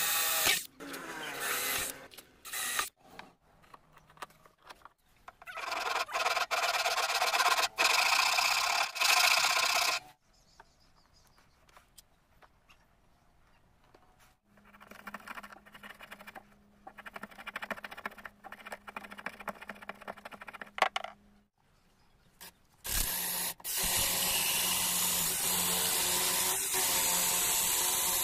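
Power drill boring into a wooden block in loud spells, broken by quieter stretches of hand work on the wood. For the last five seconds or so a power drill runs steadily, spinning a wooden stick through a jig of drill bits that shaves it into a round dowel.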